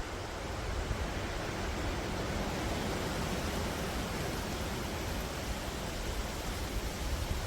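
Wind blowing through forest trees: a steady rushing of rustling leaves, with a low fluttering rumble underneath.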